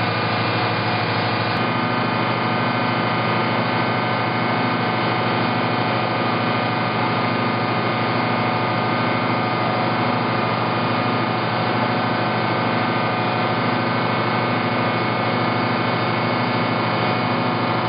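Diesel engine of a Schramm Rotadrill truck-mounted drilling rig running steadily at a constant pitch, with a slight shift in tone about a second and a half in.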